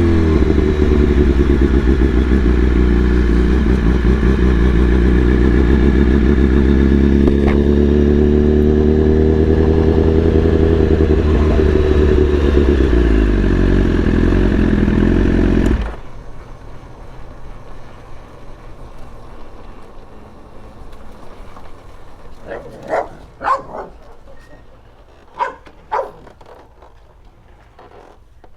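BMW S1000RR inline-four engine running at low revs, its pitch falling as it slows at first, then holding steady with slight swells. It cuts off suddenly about sixteen seconds in. What follows is much quieter, with a few short sharp sounds near the end.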